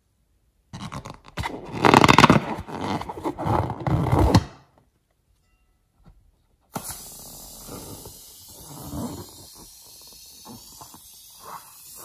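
Slime squelching out of a balloon's neck as the balloon is squeezed, loud and irregular for about three and a half seconds. After a pause, quieter snipping and rubbery handling of a second balloon, over a steady hiss.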